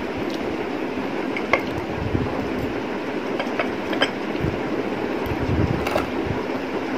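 Steady rumbling background noise, with a few light clinks of a glass bowl as fingers and finger rings touch it while eating by hand, about one and a half, four and six seconds in.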